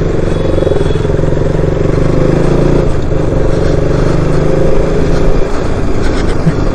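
KTM RC sport motorcycle's single-cylinder engine running steadily while riding, heard from the rider's position, its note rising and easing slightly a couple of seconds in.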